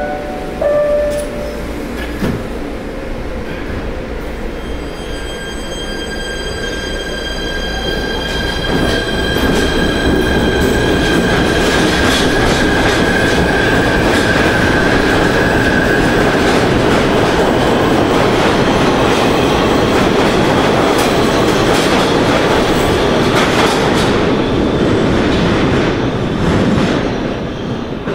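PATH PA5 subway train pulling out of an underground station: rumble and clatter of the wheels, with a steady high whine over it for the first part. It grows louder over the first ten seconds, then fades near the end as the train goes into the tunnel.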